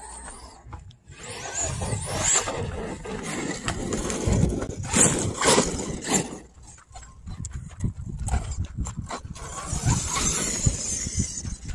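A 1/8-scale RC truggy with a brushless motor driving on loose dirt: tyres crunching and throwing dirt, with a high motor whine as it speeds up. The sound comes in uneven swells and is loudest about five to six seconds in.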